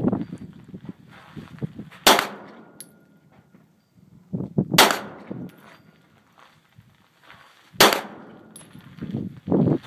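Three shots from a Smith & Wesson 9mm pistol, about three seconds apart, each with a short echo trail, and a low muffled rumble near the end.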